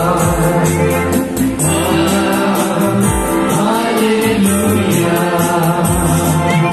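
Live gospel band playing a hymn: a Roland Juno-G synthesizer keyboard and a double-headed laced barrel drum, over a steady beat of high percussion, with singing.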